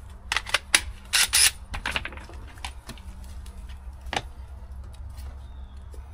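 Smooth landscaping stones clacking together as they are shifted by hand: a quick run of sharp knocks over the first two seconds, then one more knock about four seconds in.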